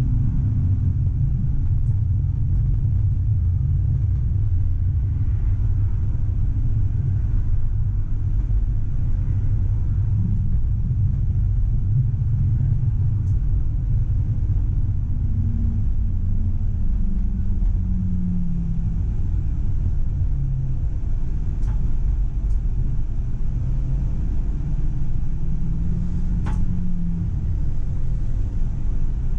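Tram running along the track, heard from the driver's cab: a steady low rumble with a faint motor tone that rises and falls in pitch as the speed changes.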